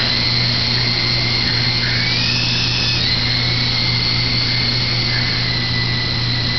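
Blade CX3 coaxial electric RC helicopter in flight, its motors whining steadily over a low hum. The whine rises in pitch about two seconds in and drops back a second later.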